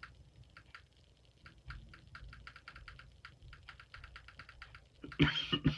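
Rubbery push buttons on a fidget box, a fidget-cube look-alike toy, pressed over and over, giving light, quick, uneven clicks. Near the end comes a short, louder burst of knocks and handling.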